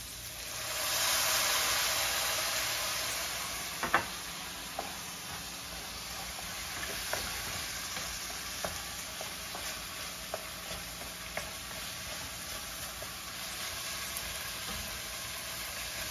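Soy sauce hitting a hot frying pan of sautéed tomatoes and onions: a sizzle swells about half a second in and fades slowly over several seconds. A wooden spoon then stirs the mixture, giving scattered knocks and scrapes against the pan, the sharpest about four seconds in, over a low steady sizzle.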